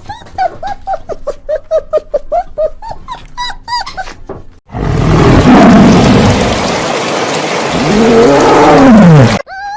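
Animal calls: a quick run of short, evenly repeated pitched calls, about five a second, then after a sudden cut a loud, rough, growling call lasting several seconds that ends in a falling moan.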